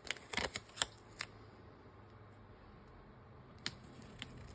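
Paper and tape being handled on a work surface: a quick run of sharp crinkles and clicks in the first second or so, then two faint clicks near the end.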